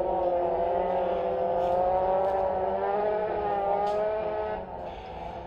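A motor engine drones steadily, its pitch wavering slightly, then cuts off about four and a half seconds in.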